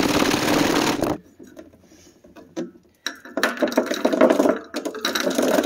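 Self-tapping screws and water rattling and sloshing inside a steel fuel tank as it is shaken to scour off rust and varnish; the shaking stops about a second in. After a short pause, about two seconds of further rattling and scraping from the tank, full of sharp clicks.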